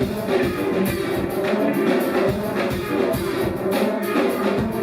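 Live rock band playing an instrumental stretch of the song with a steady drum beat and no singing.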